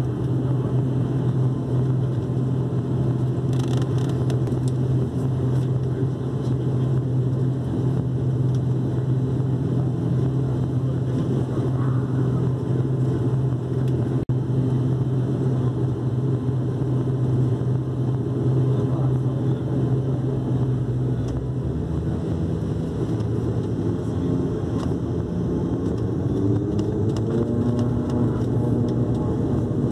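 The ATR 72-600's Pratt & Whitney PW127M turboprop engines and propellers, heard from inside the cabin: a steady low drone that changes about two-thirds of the way through, with tones rising in pitch near the end.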